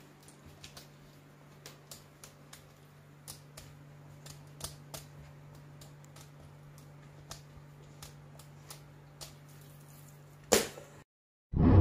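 Irregular light clicks and taps, a cat's claws on a kitchen counter and cabinet front as it stands on its hind legs pawing at food, over a steady low hum. Near the end a single louder knock, then the sound cuts out and a short loud burst follows.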